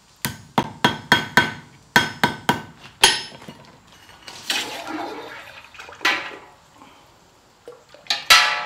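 Blacksmith's hammer tapping on steel on the anvil, about three blows a second, each with a short metallic ring, for about three seconds. Then a second-long hiss, and a few more metal knocks, the last a loud ringing clang near the end.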